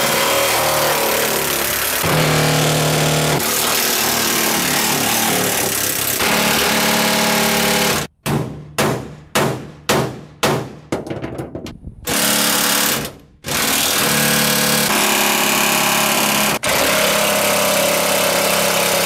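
Cordless impact gun hammering loose the truck bed's T55 Torx hold-down bolts: long runs of fast rattling impacts that cut off sharply. Around the middle it comes as a quick string of short trigger bursts.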